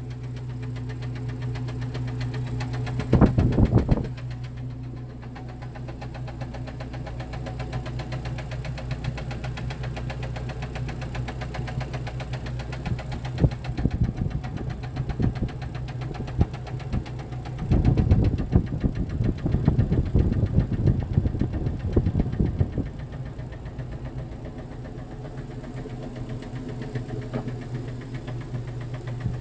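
Jeep Cherokee XJ 2.5 L four-cylinder petrol engine running with a steady, rapid knock, louder briefly about three seconds in and again for about five seconds from around eighteen seconds in. The owner puts the knock down to a broken-off piston skirt in the second cylinder.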